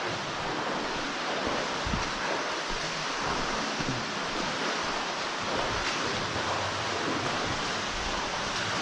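Steady rushing of a large underground waterfall, a continuous even roar of falling water.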